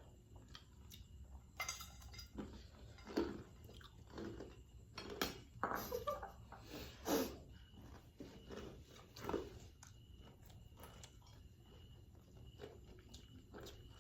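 A person eating crispy fried chicken and fried noodles close to the microphone: irregular bites, crunches and chewing, busiest in the first ten seconds and sparser near the end.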